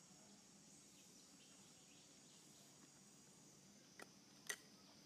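Near silence: faint outdoor ambience with a steady high hiss, broken near the end by two short sharp clicks, the second louder.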